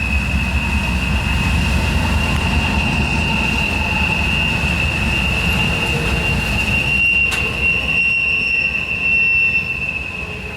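Intermodal freight train passing, with a steady high-pitched wheel squeal over the low rumble of the wheels on the rails. A single sharp click about seven seconds in.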